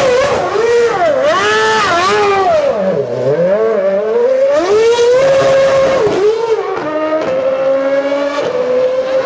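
The Red Bull RB8's 2.4-litre Renault V8 Formula One engine revving hard through donuts with wheelspin, its pitch swooping up and down again and again as the throttle is worked. In the last couple of seconds it holds a steady high note.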